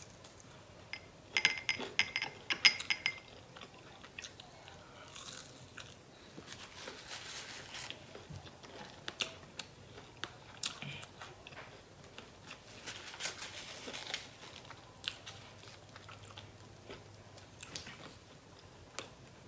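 A person biting and chewing crisp waffle fries close to the microphone: a burst of crunching about a second in, then softer chewing with scattered small clicks.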